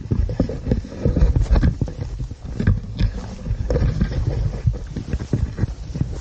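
Footsteps and leafy brush swishing as someone pushes on foot through tall, dense weeds, with a heavy low rumble on the camera's microphone.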